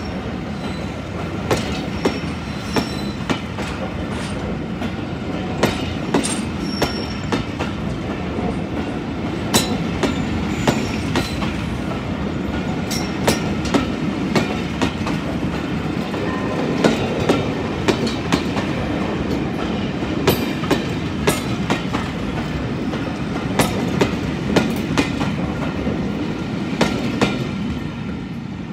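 Steam-hauled passenger coaches rolling past with a steady rumble, the wheels clicking over rail joints in pairs and groups. It fades near the end as the last coach goes by.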